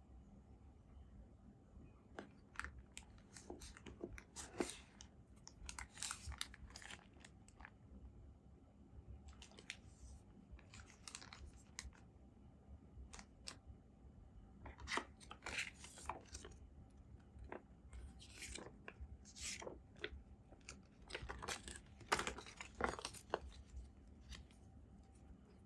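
Packaging being handled and pulled open during an unboxing: irregular clusters of crinkly rustling, scraping and tearing.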